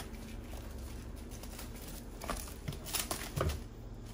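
Plastic cling wrap crinkling as hands fold it over a mound of dough: a low hum at first, then a cluster of short, sharp crackles about two seconds in.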